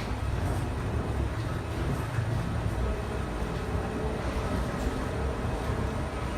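Steady low rumble and airy hiss of an Airbus A319 cabin before takeoff.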